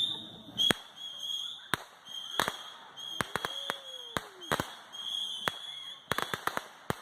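Fireworks going off: sharp bangs at irregular intervals, a few close together in the middle and a quick run of them near the end.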